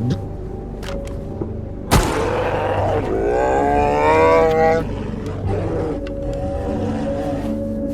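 A single sharp crack like a gunshot, then a bear's roar with rising pitch that lasts about two seconds, over a background music score.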